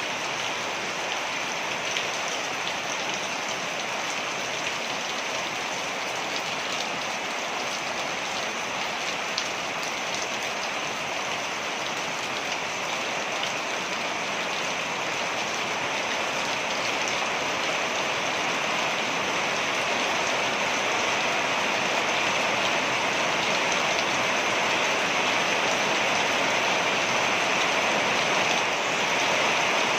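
Waterfall: a steady rush of falling water, growing slightly louder over the second half.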